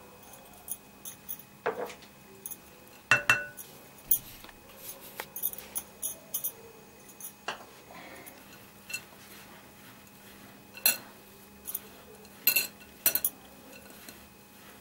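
Utensils and small dishes clinking and knocking against a glass mixing bowl while ingredients are handled. The clicks are scattered, with the loudest clatter about three seconds in and a few more near the end.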